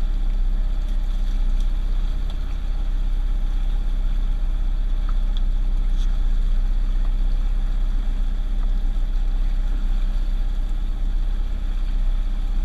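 Johnson 115 outboard motor running steadily, pushing the boat along at low speed, a constant low drone with no change in pitch.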